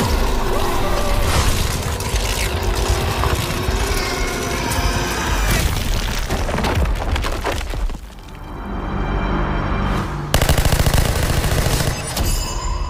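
Action movie trailer soundtrack: loud dramatic music layered with heavy booms and rapid volleys of crashing hits like gunfire. It drops back about eight seconds in, swells again, and breaks into a sudden loud volley of hits a couple of seconds later before fading at the end.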